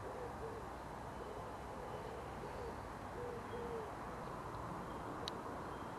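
A bird calling in a run of short, low, repeated notes through the first four seconds or so, over a steady outdoor hiss. A single small click comes about five seconds in.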